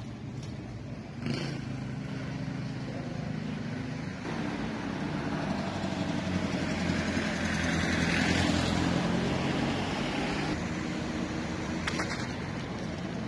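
A motor vehicle's engine running as it passes by on the street, swelling to its loudest about eight seconds in and then fading.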